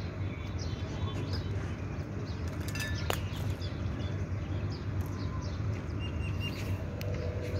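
Birds chirping and calling in short, scattered notes over a steady low hum, with a couple of sharp clicks.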